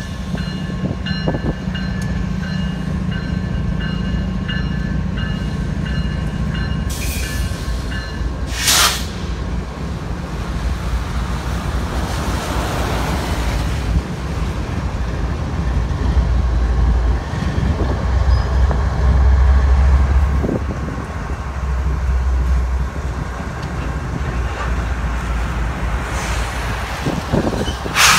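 Freight train's diesel locomotives rumbling past close by, the deep engine drone swelling loudest about two-thirds of the way through. A crossing bell rings in quick pulses for the first several seconds.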